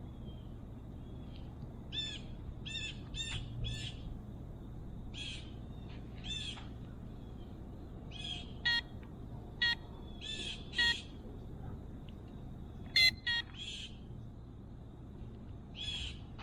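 Birds calling: short chirps repeated every second or so, with a few sharper, louder calls, over a steady low background rumble.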